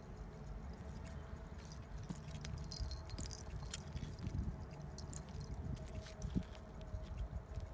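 Light metallic jingling from a walking cat's harness and leash hardware, coming and going in quick irregular clinks, over a steady low rumble.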